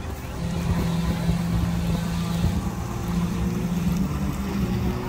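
An engine running steadily at a low, idle-like speed, a low hum that grows louder about half a second in and then holds.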